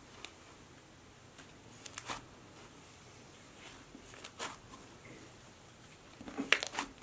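Cloud slime being kneaded and pulled apart by hand: soft, scattered crackles and squishes, with a louder cluster near the end.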